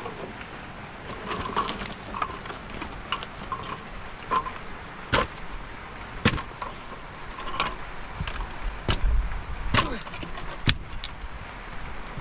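A series of sharp knocks and clatters, several of them loud, over a steady hiss, with a low rumble about nine seconds in.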